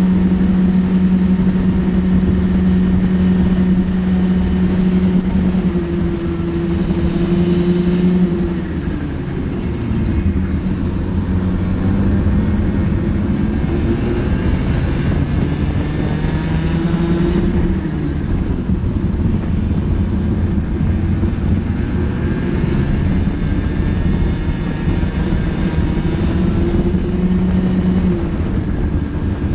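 Racing kart engine heard from the kart's own onboard camera, running at a steady high pitch on the straight, then dropping in pitch as the driver lifts for corners, about eight and seventeen seconds in, and climbing again as it accelerates out.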